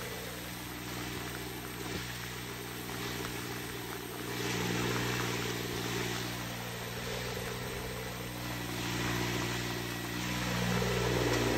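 Riding rice transplanter's small engine running steadily as the machine plants seedlings in a flooded paddy, growing a little louder toward the end as it comes closer. Rain hisses on the water throughout.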